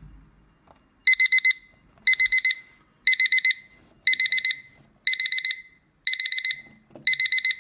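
Rhythm battery alarm clock's alarm beeping loudly: groups of four quick high beeps, one group each second, starting about a second in.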